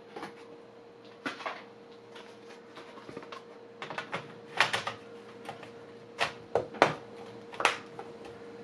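Scattered clicks and knocks of plastic and metal parts as an HP ZBook Fury 15 G8 laptop is reassembled, with a faint steady hum underneath.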